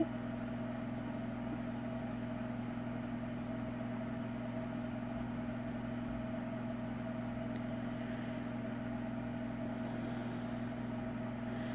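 A steady low mechanical hum with a few constant tones, unchanging throughout.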